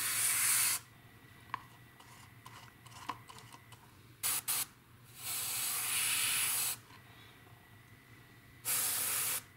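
Airbrush spraying metallic paint onto small plastic model parts in several short bursts of hiss: one at the start, a quick pair about halfway, a longer pass of about a second and a half, and a last one near the end.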